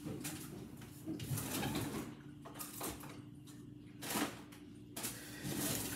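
A few separate knocks and rustles of kitchen things being handled while a food storage container is fetched, over a faint steady hum.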